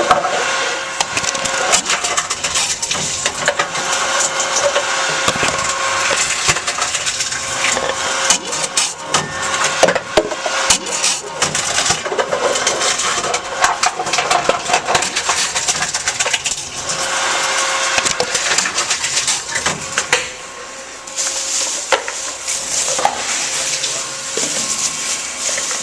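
Tomra T-53 reverse vending machine taking plastic bottles, its crusher cracking and crunching them in a continuous run of snaps over a steady machine hum.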